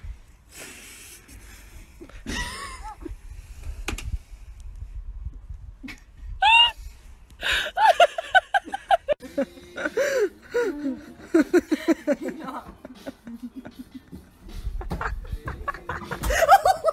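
A person laughing hard in quick, high, gasping bursts, starting about halfway through and going on for several seconds.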